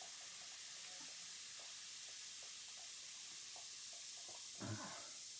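Hands squishing and stirring through a bowl of soaked fizzy-lava mush in water: faint scattered wet squelches and small ticks over a steady hiss, with one short, louder squelch near the end.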